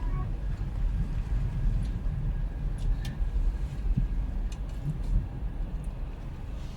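Low, uneven rumble of wind buffeting the microphone outdoors, with a few faint clicks.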